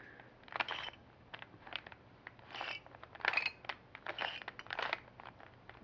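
Plastic layers of a 3x3 Rubik's Cube being turned by hand: a series of short clicking, scraping rattles, several quick turns in a row.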